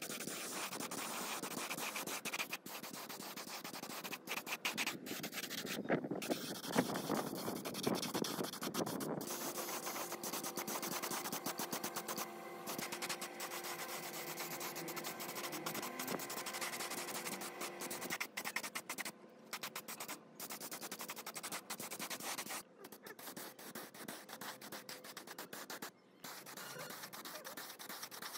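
Hand sanding of a part: a steady run of rubbing, scratching strokes, broken by a few short pauses in the last few seconds.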